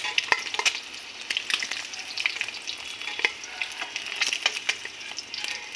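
Whole boiled eggs frying in hot oil in a steel kadai, fried golden brown: a steady sizzle dotted with sharp crackles and pops, with a metal spatula scraping and clinking against the pan as the eggs are lifted out.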